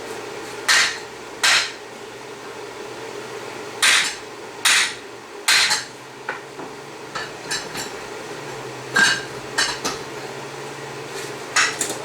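Hammer striking steel in irregular blows: about seven sharp clanks, with lighter taps between them, over a steady low hum.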